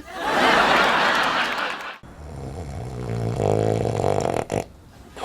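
A man snoring loudly: a harsh rasping snore of about two seconds, then a lower, rumbling snore of about two and a half seconds.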